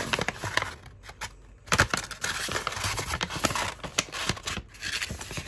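Stiff parchment-style paper sheet rustling and crackling as it is handled and held up, in irregular crackles with a short lull about a second in.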